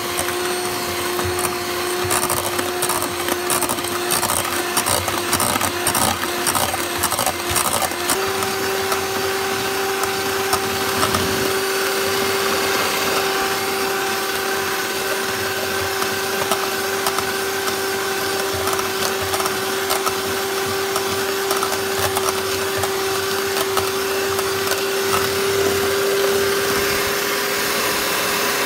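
Electric hand mixer running steadily, its twin beaters creaming butter and sugar in a stainless steel bowl. The motor's hum steps up slightly in pitch about eight seconds in, and there is a light clicking over the first several seconds.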